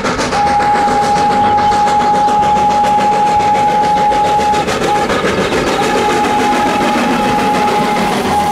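Full-size locomotive dressed as Thomas the Tank Engine approaching and running past with its passenger coaches: a loud, dense rumble and clatter, with a steady high whistle-like tone held for several seconds that breaks off briefly about halfway through.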